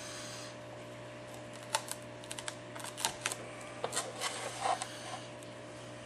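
Small pry tools clicking and tapping against the glass and frame of an iPad 4 as the touch-screen digitizer is worked loose from its adhesive: irregular light clicks that start a little under two seconds in, over a steady low hum.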